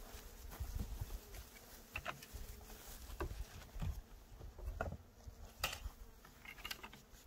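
Honeybees buzzing around the open hives, agitated and defensive ("angry") because no smoke is being used, with a few light knocks scattered through.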